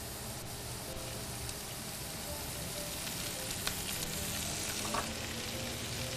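Sliced onions and ghee starting to sizzle in a pot on a gas burner as cooking oil is poured over them; the steady hiss grows gradually louder.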